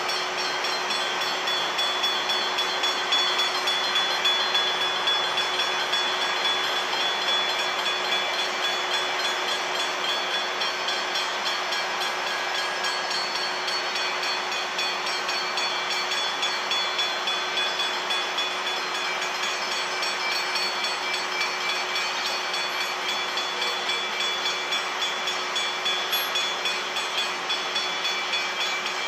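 Level crossing warning bells ringing in a steady repeating pattern over a steady rushing noise, signalling a train approaching the crossing.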